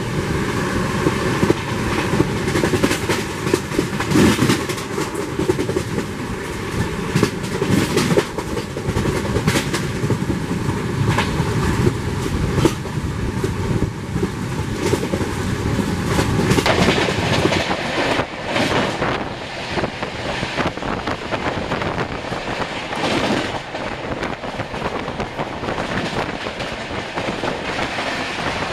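Running noise of an Indian Railways express train at speed, heard at an open coach door: a steady rush of wind and wheels with irregular clacks over the rail joints. About two-thirds through the sound shifts to a different run, with a train passing close on the next track near the end.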